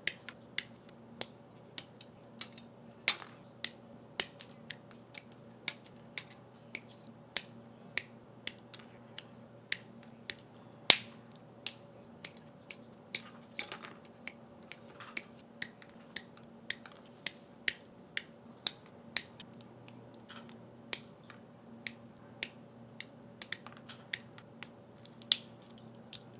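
Sharp plastic clicks, about two a second with a few louder snaps, from parts of a Gunpla plastic model kit being cut from the runners and snapped together. A faint steady low hum runs underneath.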